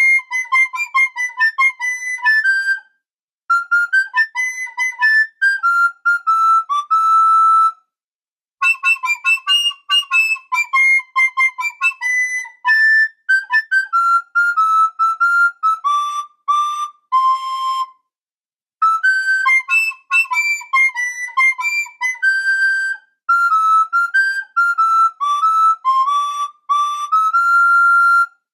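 Someone whistling a tune: quick runs of short, high notes that slide up and down, in phrases of several seconds with short breaks between them.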